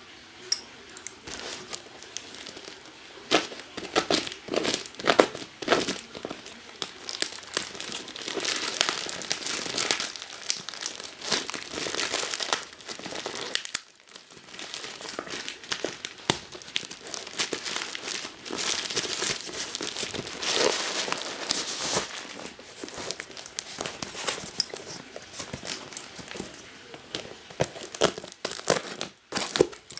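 A plastic mailing bag crinkling and tearing as it is pulled open by hand, in irregular bursts with a short pause about halfway. Near the end, scissors cut into the cardboard box inside.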